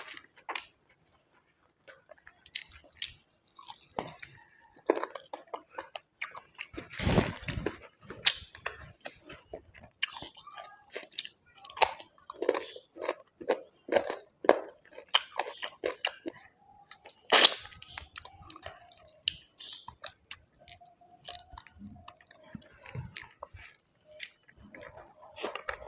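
A person chewing and crunching food close to the microphone: irregular wet mouth smacks and clicks, with a few louder crunches.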